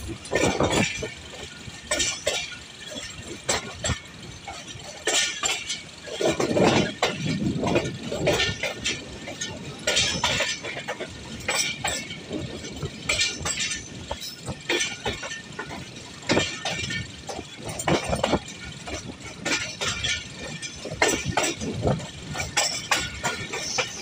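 Moving passenger train clattering: irregular sharp metallic knocks, clinks and rattles, with a run of heavier thuds about six to eight seconds in.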